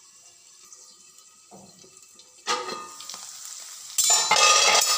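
Low level at first, then a sudden metal clatter about two and a half seconds in. From about four seconds, a spatula stirs and scrapes cubes of red pumpkin frying in a metal kadhai, with sizzling.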